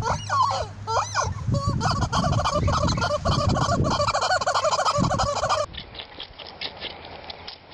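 Turkeys gobbling in rapid, rattling, warbling calls, one after another for about five and a half seconds. After a cut, a quieter stretch of rapid light clicks follows.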